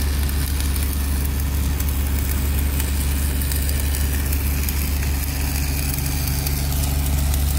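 Diesel engine of a Kobelco 7080 crawler crane running steadily at idle, a deep even drone with no hammer blows.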